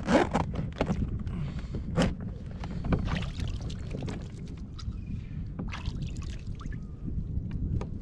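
Water lapping against the plastic hull of a Hobie kayak, with scattered knocks and clicks on the deck; the sharpest comes right at the start and another about two seconds in.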